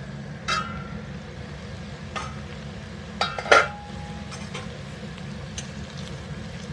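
Metal clinks and knocks from a steel lid and spatula against a kadhai of frying potato wedges. A ringing clink comes about half a second in, and the loudest knocks, one with a short ring, come around three and a half seconds in, over a low steady hum.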